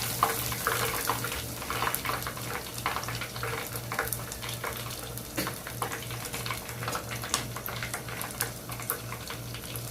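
Hot cooking oil crackling and popping irregularly as food deep-fries, over a steady low hum.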